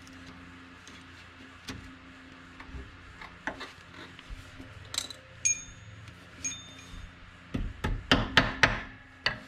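Metal-on-metal strikes at a car's front wheel hub. A few light taps come around the middle, two of them with a short high ring. Near the end comes a quick run of about eight heavier blows from a brass hammer on the end of the CV axle.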